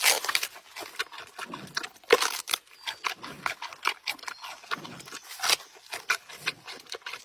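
Giant panda chewing and crunching its food: irregular loud crunches and snaps, several a second, with softer wet chewing between them.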